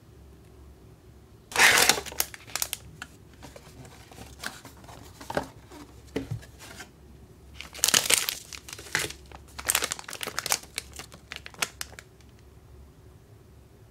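Crinkling of a clear plastic bag and candy packet wrappers being handled. It comes as crackly bursts: a loud one about two seconds in, then a run of them between about eight and twelve seconds.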